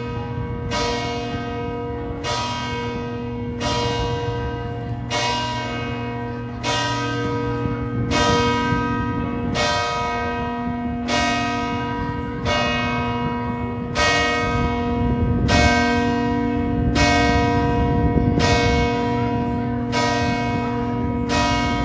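Large church bells of St Mark's Campanile tolling steadily, a strike about every second and a half, each ringing on into the next.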